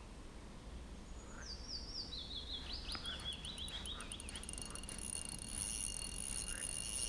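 A songbird singing a descending run of short notes, each a little lower than the last, over about three seconds. A steady high whirr joins it in the second half.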